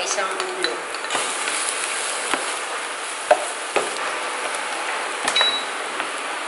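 Minced garlic sizzling in hot cooking oil, the hiss growing stronger about a second in, while a spatula stirs it and knocks against the pan several times.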